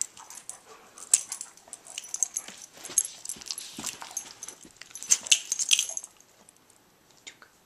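Large black dog playing rough with a person on a couch: scuffling and rustling with many short clicks and a bright jingling of its metal collar tags, settling down about six seconds in.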